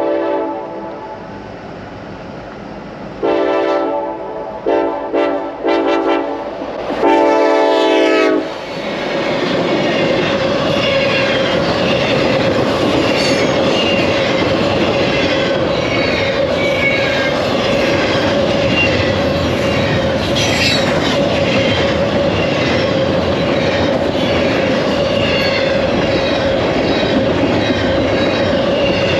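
CN freight locomotive horn sounding a chord: a blast fading out in the first second or two, then two or three short toots and a longer final blast ending about eight seconds in. The long freight train then rolls past at speed, with rhythmic clickety-clack of wheels over rail joints and a steady ringing tone over the rumble.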